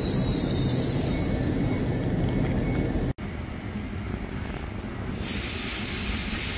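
A train running through the station with a low rumble, its wheels squealing on the rails for the first two seconds. After a sudden cut about three seconds in, a quieter train rumble goes on, with a high hiss joining about five seconds in.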